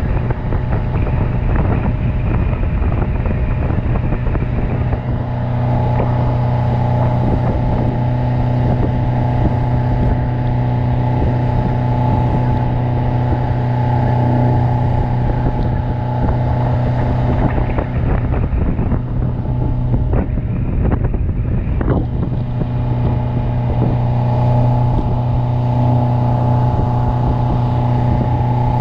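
Yamaha 150 outboard motor running steadily at cruising speed while towing a tube, its engine tone constant, over the rush of water from the wake and wind buffeting the microphone.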